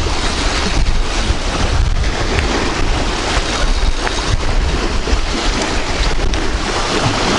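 Strong wind blowing over the microphone: a steady, loud rumble and hiss.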